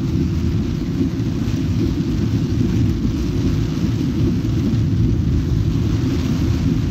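Heavy storm rain on a moving car, heard from inside the cabin as a steady, loud low rumble mixed with road noise.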